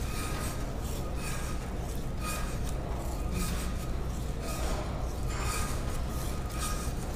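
Perforated surform-style rasp scraping a plaster positive model of an above-knee prosthetic socket in repeated hissing strokes, with a short lull in the middle. The strokes shave plaster off to reduce the model's size.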